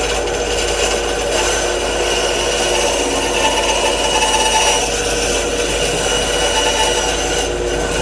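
Benchtop band saw running with a steady hum, its blade cutting through a piece of wood fed by hand across the table.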